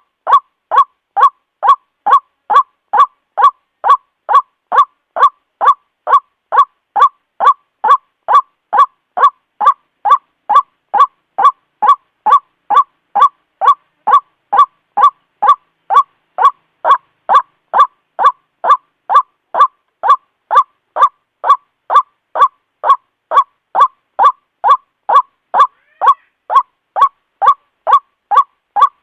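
White-breasted waterhen's call ("ruak-ruak") repeated steadily, short loud honking notes about two a second in an unbroken rhythm.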